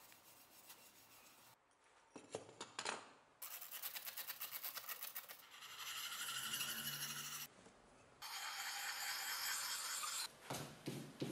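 Steel axe blade clamped in a vise being sharpened by hand, the sharpener rasping along the edge. First come quick, regular strokes at about five a second, then longer steady passes, then quick strokes again near the end.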